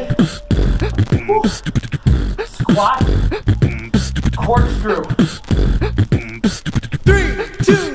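Upbeat background music with a steady beat and chopped vocal sounds.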